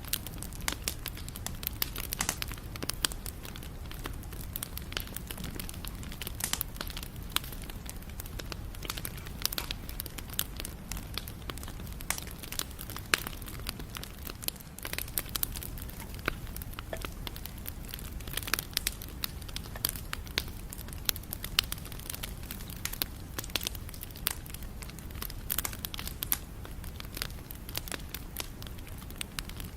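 Campfire burning: wood crackling and popping in frequent, irregular sharp snaps over a steady low rumble of the flames.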